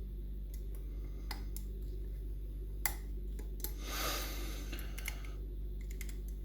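Lock-picking tools working inside a Union Strongbolt lever mortice lock: a few scattered small metallic clicks and a short scrape about four seconds in, over a steady low electrical hum.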